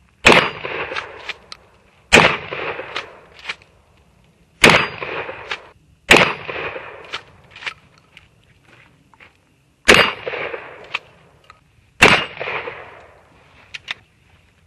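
Shotgun fired six times at uneven intervals of roughly two to four seconds, each loud shot dying away over about a second and followed by a few short sharp clicks.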